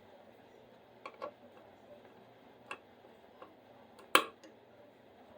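Scattered sharp clicks of a screwdriver tightening the top mounting screw of a light switch, with one louder click a little after four seconds in.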